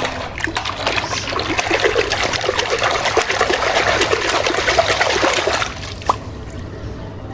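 Water running and splashing over a muddy toy animal as it is rinsed clean, stopping abruptly about six seconds in, followed by a single short click.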